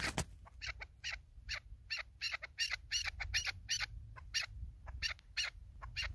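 Chukar partridge calling: a long, even run of short clucking notes, about three or four a second.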